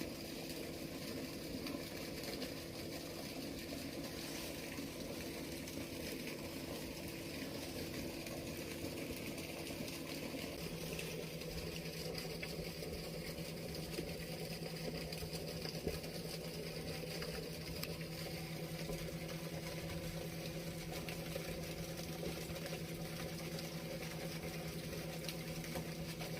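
Steady wash of water flowing through a seaside sluice gate on the ebbing tide, with a faint low steady hum underneath whose pitch shifts slightly about ten seconds in.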